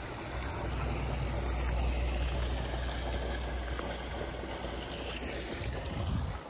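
Water running out of a roadside culvert pipe, a steady even splashing flow, with a low rumble underneath.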